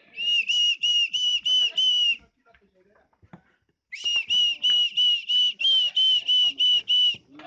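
A person whistling a quick run of short, identical notes, about three a second, of the kind used to call cattle along. There are six notes, a pause of nearly two seconds, then about eleven more.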